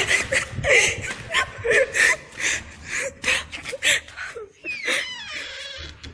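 People breathing hard and giggling in quick bursts while running away in fright, with a short high-pitched squeal about five seconds in.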